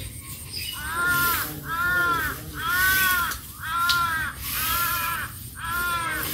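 A crow cawing six times, about one caw a second, each call rising and falling. Faint rustling of dry rice straw being pulled from a haystack lies beneath.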